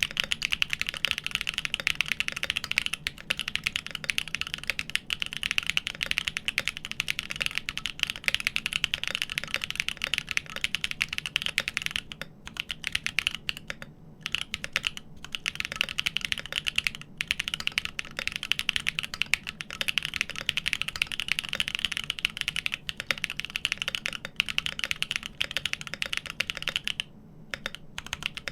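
Continuous fast typing on a GEON FROG TKL mechanical keyboard with an aluminium plate and lubed Everglide Dark Jade Black switches on 72 g slow springs: a dense run of key clacks, broken by a few short pauses about halfway through and again near the end.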